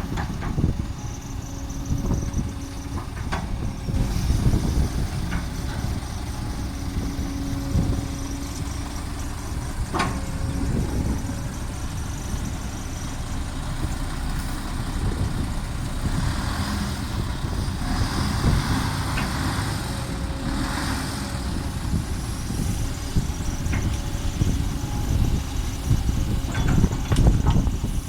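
Heavy diesel dump truck engine running with a steady low rumble, with scattered knocks and a few hissing stretches in the second half.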